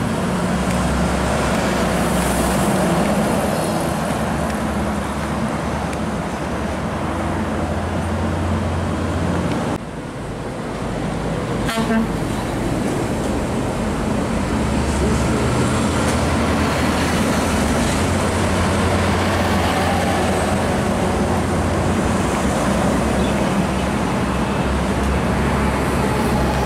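Heavy diesel trucks passing on an expressway: a steady deep engine drone over tyre and traffic noise, with a short horn toot about halfway through.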